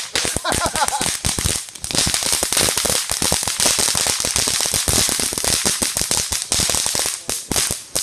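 Consumer ground fireworks going off: a dense, continuous run of rapid crackling pops over the steady hiss of a spark fountain, easing off briefly about two seconds in and again near the end.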